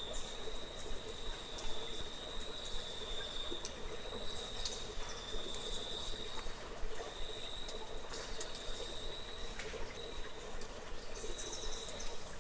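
An insect, cricket-like, singing a steady high-pitched trill that wavers slightly, with scattered faint clicks and ticks and a low, even background hum.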